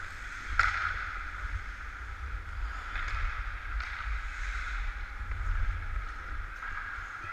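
Ice skates scraping and carving on rink ice, heard from a camera worn by a skating hockey player, with a steady wind rumble on the microphone. A few sharp knocks stand out, about half a second in and twice around three to four seconds in.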